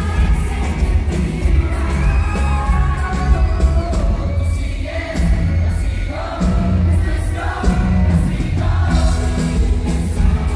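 Live pop music played loud through a concert PA: several singers singing into microphones over a band with drums and bass guitar, with a heavy bass.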